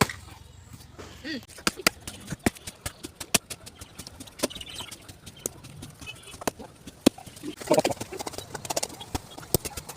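Irregular sharp knocks and clicks of a tool striking a tree root as it is hacked and pried out.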